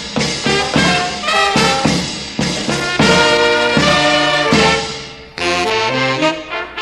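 Brass band with cornets playing: short detached chords at first, then longer held chords about three seconds in, easing off a little after five seconds with a low line climbing in pitch underneath before the band comes back in.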